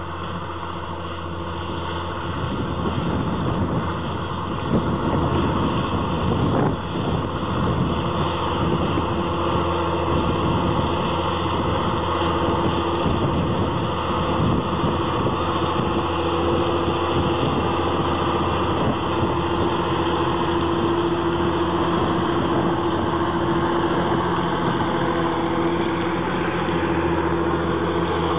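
Diesel engine of a John Deere tractor running steadily under load while it pulls a disc harrow through the field, getting louder a couple of seconds in.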